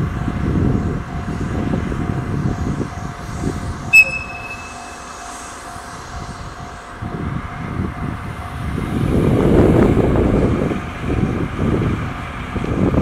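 DD51 diesel-hydraulic locomotive gives one short, high-pitched whistle blast about four seconds in, over the steady rumble of its running diesel engines. The engine noise swells about nine seconds in as the locomotive moves off during shunting.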